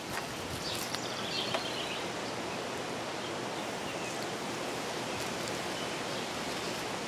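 Steady outdoor background hiss, with a few faint rustles and scrapes in the first two seconds as black drip-irrigation tubing is handled against the porch rail and shrub leaves.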